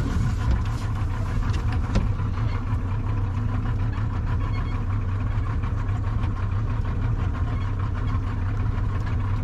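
A boat's outboard motor running steadily at low speed, an even low hum.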